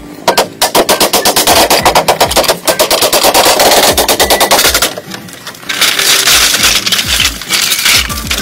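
Wooden mallets knocking on bamboo: a fast run of dry knocks, about ten a second, for the first half, then a noisier, hissing clatter with scattered knocks.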